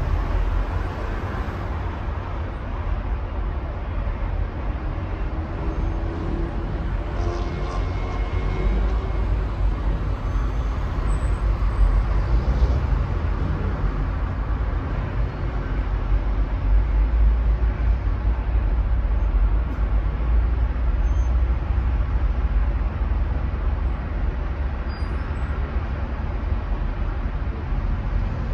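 Road traffic noise from a congested city highway: a continuous low rumble of many car engines and tyres, steady throughout.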